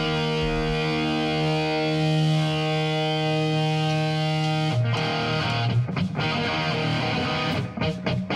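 Rock band playing live through amplifiers: distorted electric guitar and bass hold a sustained chord for about five seconds, then the band switches to short, choppy hits broken by brief gaps.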